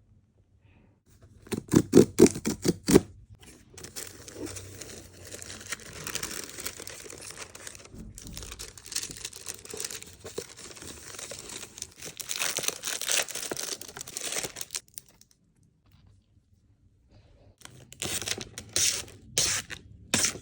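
Packaging being torn open and unwrapped. A run of sharp crackles comes first, then a long stretch of tearing and crinkling, and more crackles near the end.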